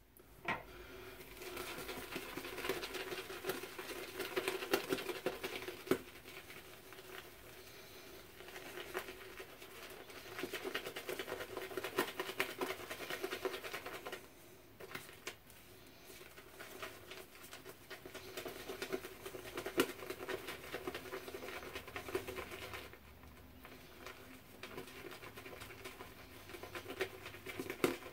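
Synthetic shaving brush being swirled and worked on a puck of shave soap to load it: a soft, continuous scratchy brushing, with brief pauses about halfway through and again near the end.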